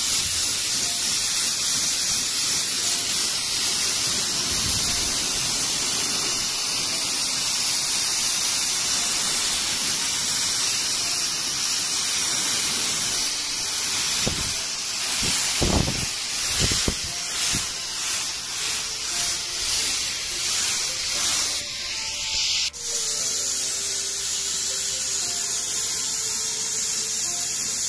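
Paint spray gun hissing as a white base coat is sprayed on in light blend passes. The hiss is steady at first, comes in uneven surges around the middle, and changes abruptly near the end to a steadier hiss with a faint hum.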